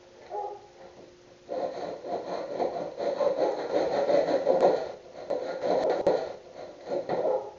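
Hand plane scraping along a wooden board in long strokes, starting about a second and a half in, with a short break about five seconds in.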